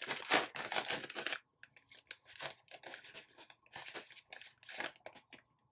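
A trading card pack's wrapper being torn open, a dense ripping for about the first second and a half, then lighter crinkling and small crackles as the wrapper and cards are handled.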